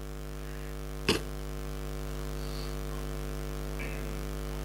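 A steady electrical hum, with one short click about a second in.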